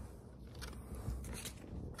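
Faint handling noise from a yogurt cup's paper lid and packaging: soft rustling and scraping, with short crinkles about two thirds of a second and a second and a half in.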